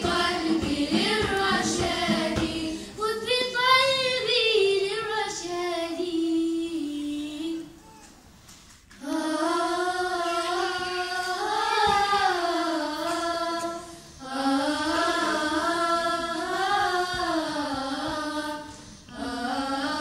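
A group of young girls singing a nasheed together in unison, melodic phrases with ornamented runs, breaking off for about a second around the middle before the next phrase. Light percussion taps go with the singing in the first couple of seconds.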